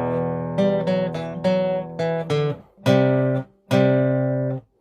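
Guitar playing a riff: a ringing chord, then a quick run of single picked notes, then two chords that are each stopped short.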